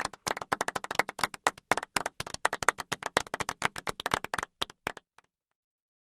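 A small group of people applauding, their separate hand claps coming quickly and unevenly, then thinning out to a few last scattered claps and stopping about five seconds in.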